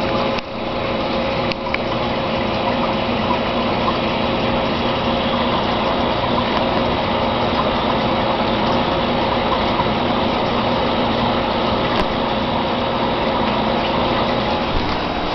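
Aquarium pump running: a steady hum with several held tones over a wash of water noise.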